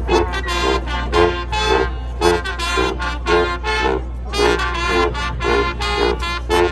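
Marching band brass playing short, punchy notes in a steady rhythmic pattern, over a steady low hum.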